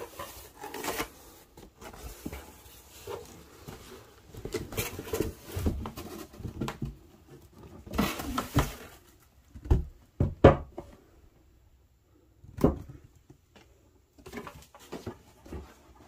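Cardboard shipping box being handled: flaps and the boxed product rustling and scraping against the cardboard as the product box is lifted out. Several sharp knocks come a little past halfway, the loudest about ten and a half seconds in, and another about two seconds later.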